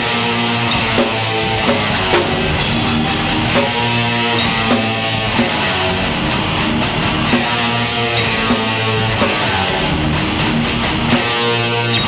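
Rock band playing live: electric guitars chugging through heavy, sustained chords over a drum kit keeping a steady beat.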